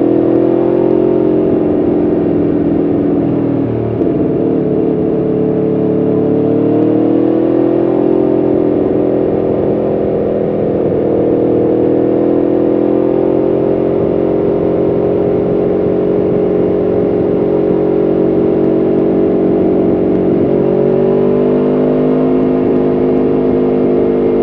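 Aprilia Tuono V4 1100RR's V4 engine running under way, its pitch drifting slowly up and down with the throttle. About four seconds in, the pitch and loudness dip briefly before climbing again.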